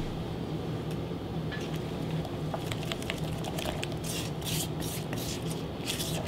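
Small silicone spatula stirring and scraping batter in a glass measuring cup: a quick run of scraping strokes that starts a couple of seconds in and gets busier toward the end, over a steady low hum.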